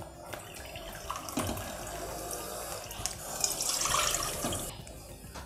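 Water being poured: first from a plastic bottle into a measuring cup, then tipped from the cup into an empty nonstick pot, the pour growing louder and splashier in the pot a little past halfway and stopping shortly before the end.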